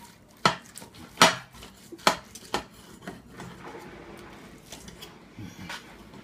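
Knife and fork clinking and scraping against a plate while cutting a cooked steak: four sharp clinks in the first three seconds, then softer sawing and scraping with a few light taps.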